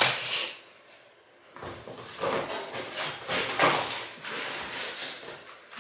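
Grocery packaging and bags rustling and crinkling as items are handled and unpacked, in irregular bursts after a short lull about a second in.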